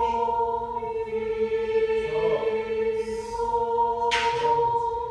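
A small choir singing long held notes in unaccompanied harmony. One inner part moves about two seconds in while the others hold, and there is a breathy hiss about four seconds in.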